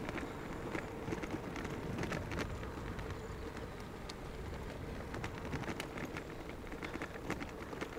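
Riding noise from a moving bicycle: steady low rumble of wind on the microphone and tyres on the road, with a faint steady hum and many small irregular ticks and rattles.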